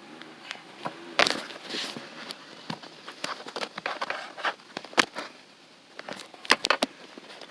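Irregular clicks, knocks and rustling from hands and objects being handled close to the microphone.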